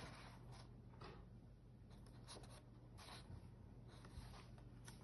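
Faint rustling of a softcover book's paper pages being handled and turned, a soft brush of paper about once a second over a low room hum.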